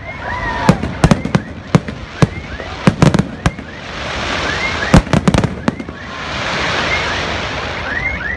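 Fireworks display: volleys of sharp, loud bangs from aerial shells bursting in quick clusters. Between the volleys come two long swells of hiss.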